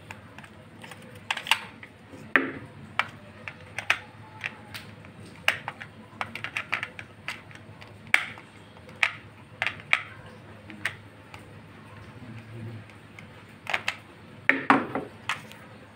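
Irregular small metallic clicks and taps of needle-nose pliers and fingers working at the centre of a gilt quartz clock's dial, fitting the washer and nut on the hand shaft.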